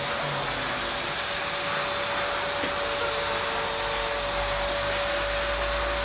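Pet grooming blow dryer running steadily: an even rush of air with a steady whine from its motor.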